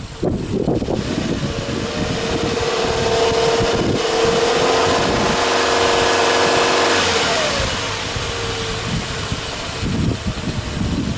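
Subaru Legacy B4 2.5i's flat-four boxer engine, stationary, revved up smoothly from idle over a couple of seconds, held at higher revs for about three seconds, then let fall back to idle.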